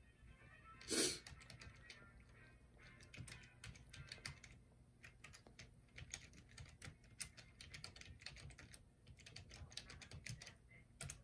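Quiet typing on a computer keyboard: irregular light key clicks, with one short, louder noise about a second in.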